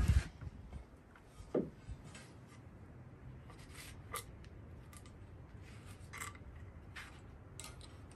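Wooden boards being handled: light knocks, taps and rubbing of lumber, with one fuller knock about a second and a half in. The very start catches the last instant of a power drill.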